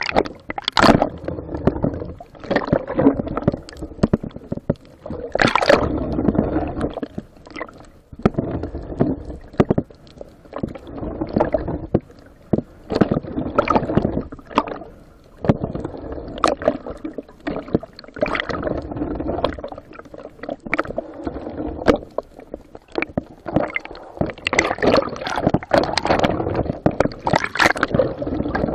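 Water sloshing and gurgling in irregular surges every second or two.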